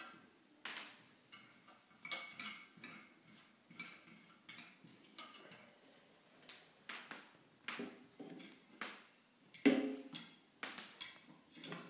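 Irregular small clicks and knocks of cables and plugs being handled and set down, with a louder knock near the end.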